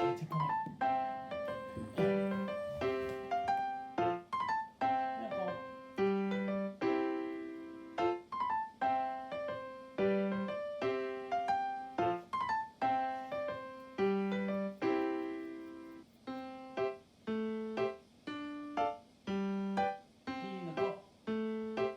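Background piano music: a light melody of struck notes, each fading after its attack.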